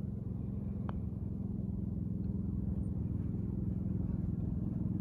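Steady low drone of an idling engine from the turf-maintenance vehicles parked beside the green, with a single light click about a second in as a putter strikes a golf ball.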